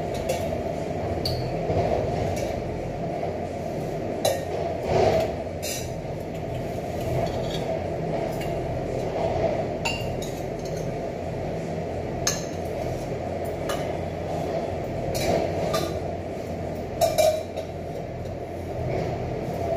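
Stainless steel ladle, bowls and thali clinking as food is served out, with sharp clinks scattered through. Under them runs a steady background hum.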